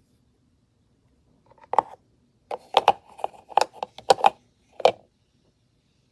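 A quick run of sharp knocks and clacks, about eight over three seconds, starting just under two seconds in.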